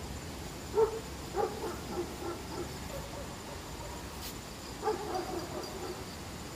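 An animal calling in short repeated calls: a group about a second in, and another about five seconds in.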